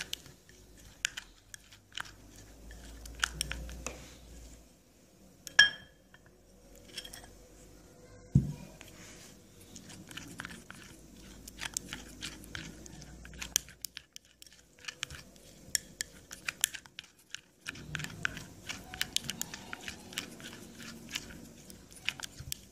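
A spoon stirring a thick paste of rice powder, lemon juice and milk in a ceramic bowl, making quick wet scraping and clicking against the bowl. There are two louder knocks, one about six seconds in and one about eight.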